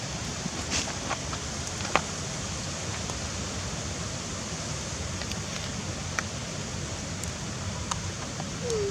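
Steady rushing background noise with a few faint, scattered clicks, and a brief sliding squeak just before the end.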